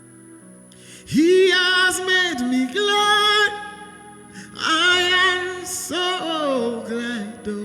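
Gospel worship music: a singer holding long, wavering phrases over a soft guitar accompaniment, the voice coming in about a second in.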